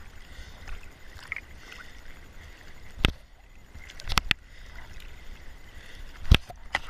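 Small sea waves lapping and sloshing at a camera held right at the water surface, with sharp slaps of water against it about three seconds in, twice around four seconds, and hardest a little after six seconds.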